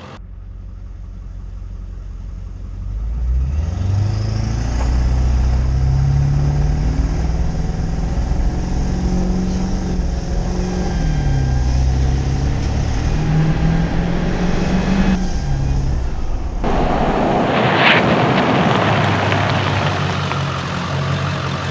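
Ford F250 Super Duty's 7.3 L Power Stroke turbo-diesel V8 accelerating hard, its pitch climbing, dropping back at a gear change about ten seconds in, and climbing again. Near the end a loud rushing of tyres and wind takes over as the truck makes a hard 55 mph stop for a brake test, with a brief sharp high squeal in the middle.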